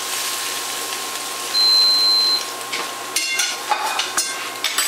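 Food sizzling in a stainless steel frying pan. About one and a half seconds in there is a single high electronic beep lasting under a second, and in the last two seconds a few sharp metal clinks of a spatula against the pan and a plate.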